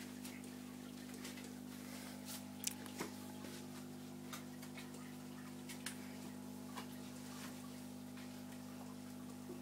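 Steady low electrical hum with scattered light clicks and taps, the sharpest about three seconds in.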